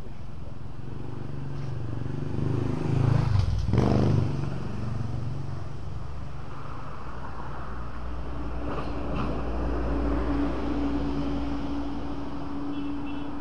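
Road traffic: a motor vehicle, likely a motorbike, passes close by about three to four seconds in, loudest as it goes past, its engine pitch dropping away. A steady low engine hum carries on under the rest.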